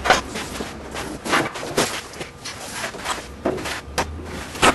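Footsteps and irregular knocks on the floor of an empty box truck trailer, a few sharp thuds a second, over a low steady hum.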